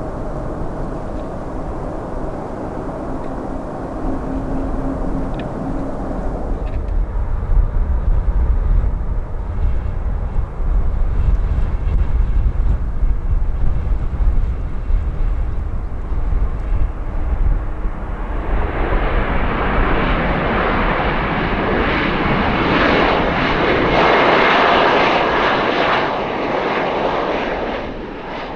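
Jet airliner engines: a steady, distant sound that switches abruptly to a deep rumble, then swells into a loud roar about two thirds of the way in and eases off near the end.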